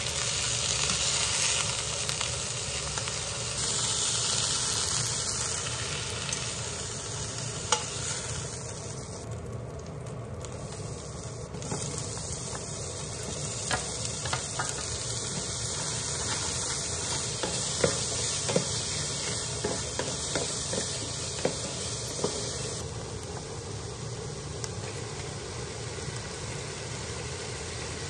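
Food sizzling in a hot frying pan as chunks of beef sear and then diced onion, celery and garlic fry, with scattered clicks and scrapes of metal tongs and a wooden spatula against the pan.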